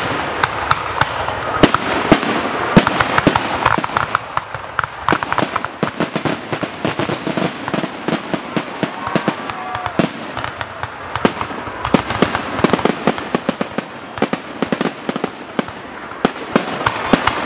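Fireworks finale barrage: aerial shells bursting in rapid succession, with sharp bangs coming several a second at times over a constant crackle.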